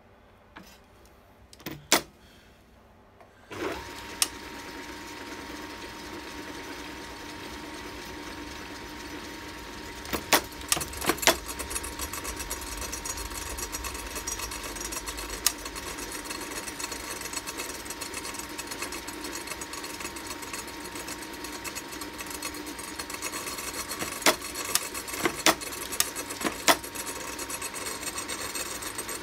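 Small capstan lathe switched on a few seconds in and then running steadily with a thin whine, with sharp clicks now and then. Before it starts there are only a few light clicks.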